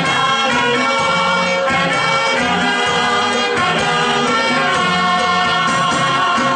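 A group of men and women singing together through microphones over amplified instrumental backing music.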